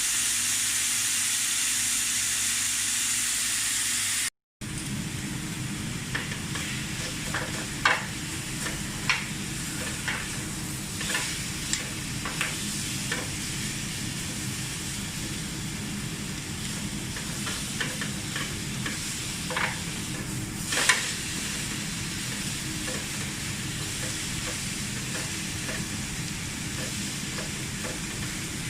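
Food sizzling in a hot pan, loud and steady at first; after a short break it goes on as a quieter sizzle with scattered clicks and taps from a cooking utensil.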